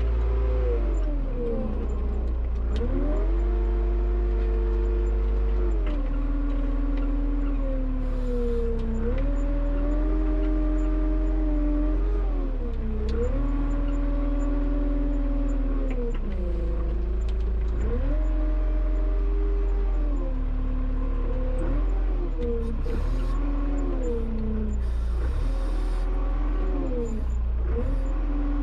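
Front-loader tractor engine running under changing load, its pitch rising and falling every few seconds as the engine speeds up and slows down, over a steady low rumble.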